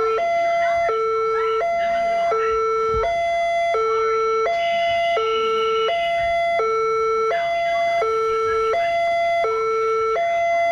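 Electronic two-tone siren of a miniature railway-crossing gate model, alternating steadily between a high and a low note, each held about three-quarters of a second.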